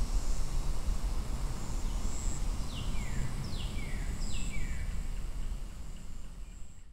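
Outdoor ambience with a steady low rumble and hiss. In the middle a bird calls three times, each call a quick falling whistle. The sound fades out near the end.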